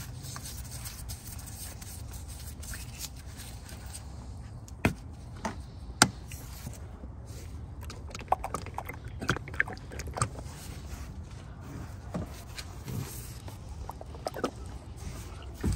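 Engine oil being poured from a plastic jug into a plastic funnel: scattered light clicks and taps of the plastic jug and funnel being handled, over a low steady rumble.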